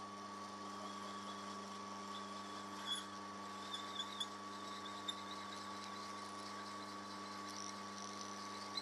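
Drilling machine running with a steady hum and whine as a twist drill bores a compression-release hole into an aluminium Revtech 110 cylinder head. Faint high chirps and a few light ticks of the cutting come and go.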